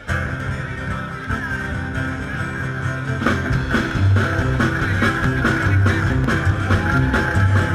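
Live band playing a rock and roll number: upright bass, acoustic guitar and drums with a steady beat.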